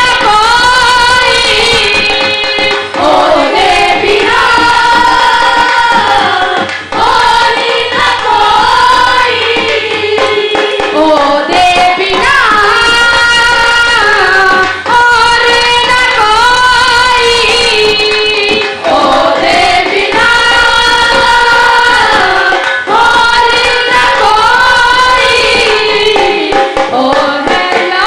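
A woman singing a devotional worship song into a microphone, with long held notes that slide between pitches, over musical accompaniment.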